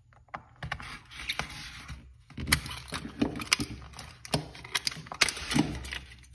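Pliers being unpacked by hand: the retail packaging is handled and pulled apart, giving a string of irregular clicks and knocks with rustling between them.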